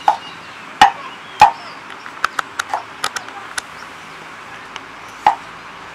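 Cleaver chopping fresh ginger on a thick round wooden chopping board. Three hard chops come in the first second and a half, then a run of lighter clicks and taps, then another chop about five seconds in.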